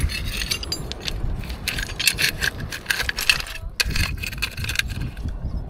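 A run of light clinks, rattles and scrapes from objects being handled, over a steady low wind rumble on the microphone.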